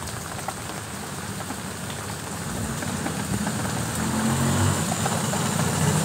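Steady rain falling, an even hiss. From about halfway a vehicle's engine rumble comes in low and grows steadily louder as it approaches.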